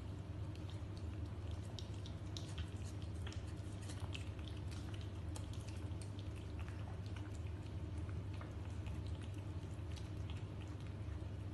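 Two cats eating from a metal bowl: many quick, irregular chewing and lapping clicks, over a steady low hum.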